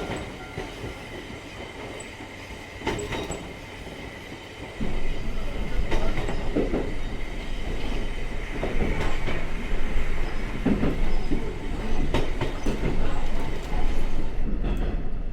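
Diesel railcar running on rails, heard from inside the carriage: a low rumble with wheels clacking over rail joints. The rumble jumps much louder about five seconds in.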